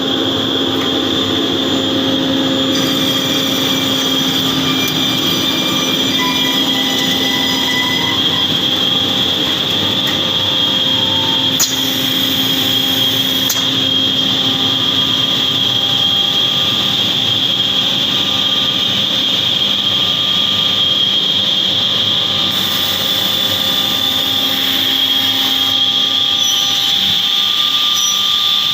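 Edge banding machine running: a steady mechanical hum and whine with a constant high tone. Two faint clicks come near the middle.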